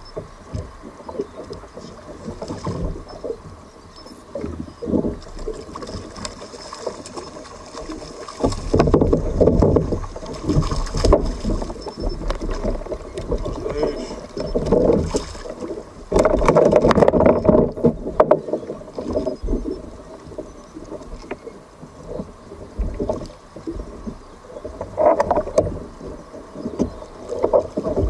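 Water sloshing and splashing against a kayak in uneven surges, loudest about nine seconds in and again around sixteen to eighteen seconds.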